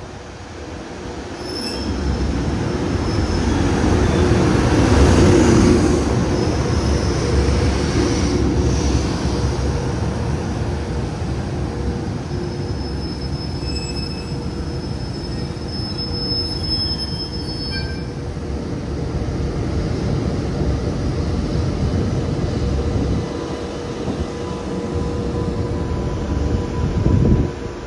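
Freight train hauled by a JR Freight EH200 electric locomotive running past: a loud, steady rumble of wheels on rail that swells a couple of seconds in, with thin high squealing tones from the wheels over it. The sound drops off suddenly near the end.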